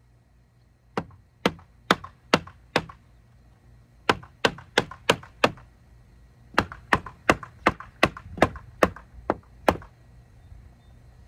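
Hammer striking the weathered wooden boards of an old swingset: three runs of quick, evenly spaced blows, about five, five and then nine strikes, a little under half a second apart.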